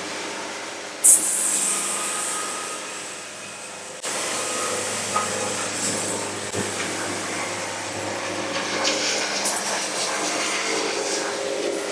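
Portable band sawmill running, its band blade cutting through a log with a steady, loud mechanical noise. A short, sharp hissing burst comes about a second in, and the noise gets suddenly louder about four seconds in.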